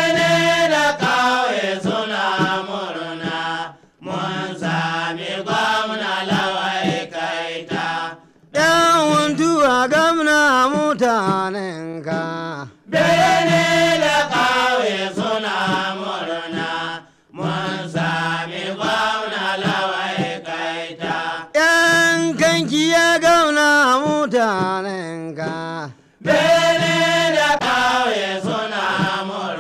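Hausa praise singing, chanted in melodic phrases of a few seconds each with brief pauses between them.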